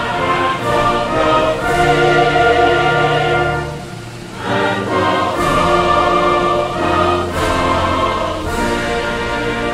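Background music: a choir singing over an orchestra in long, held chords, dipping briefly about four seconds in.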